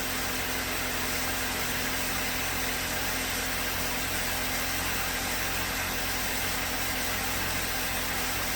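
VW 1.8 TSI direct-injected four-cylinder engine idling steadily just after being started. The owner suspects a misreading high-pressure fuel sensor of making it run rich at idle.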